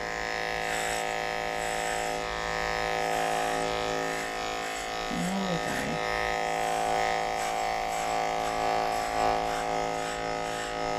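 Heiniger electric dog-grooming clippers running with a steady hum as they shave down through a heavily felted, matted curly coat.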